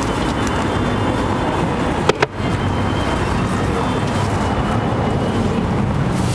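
Steady street noise with road traffic, and two short sharp clicks about two seconds in.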